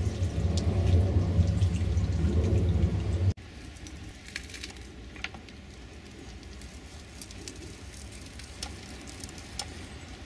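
Scale-model Foster steam traction engine at work: a low rumble for about three seconds that stops suddenly, then a soft sizzling hiss with scattered light ticks and clicks.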